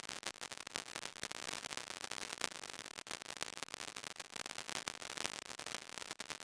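Dense, irregular crackle of clicks from a radiation detector counting the weakly radioactive thoriated tungsten welding electrode, the random spacing typical of radioactive decay.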